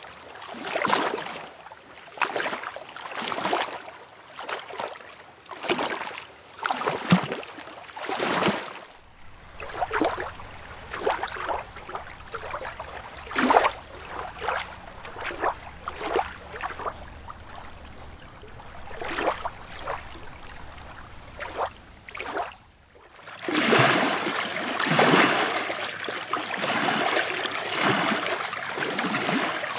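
Lake water lapping and splashing in small irregular washes, roughly one every second. The sound changes abruptly twice, the last stretch becoming denser and more continuous.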